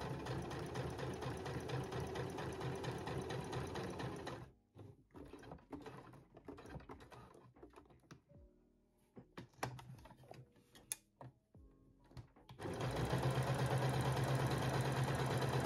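Domestic electric sewing machine stitching a seam, running steadily for about four seconds, then stopping. A stretch of scattered clicks and fabric handling follows, and the machine starts stitching again near the end.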